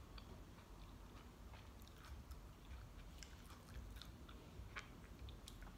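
Faint chewing of a kiwi eaten with its tough skin on, heard as scattered soft mouth clicks.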